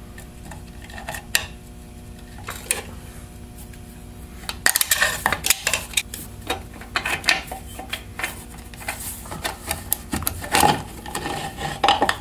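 Metal clicks and clinks as the retaining ring is worked out of a Turbo 400 transmission case and the intermediate clutch plates and steels are lifted out. A few separate clicks at first, then a busy run of clinking from about halfway in.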